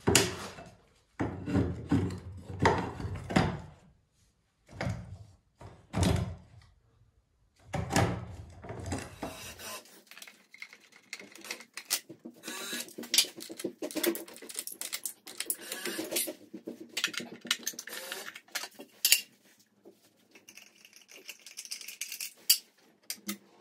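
Handling noise from electrical work on a consumer unit: a few heavy knocks and bumps, then about ten seconds in a switch to rapid clicking and rattling of parts and tools.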